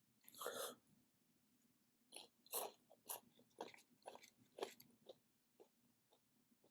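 Flamin' Hot Cheetos being crunched and chewed close to the microphone: a run of crisp crunches, about two a second, starting about two seconds in and stopping near the end.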